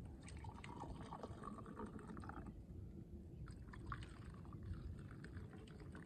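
Hot coffee pouring in a thin stream from a glass Chemex carafe into a cup for the first two seconds or so, followed by a few light clicks and drips.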